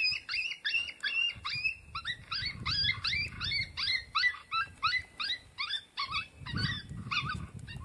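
Lucky Duck Revolt electronic predator call playing a fast run of short, high cries, about three a second, which stops abruptly near the end.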